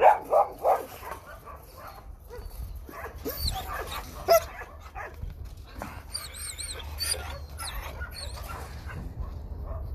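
Shelter dogs barking at a chain-link fence: three loud barks in the first second and another about four seconds in, with quieter scattered sounds between.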